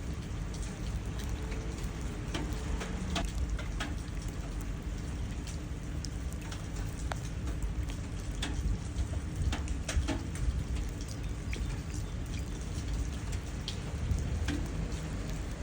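Steady rain falling, with many individual drops pattering and plinking into puddles.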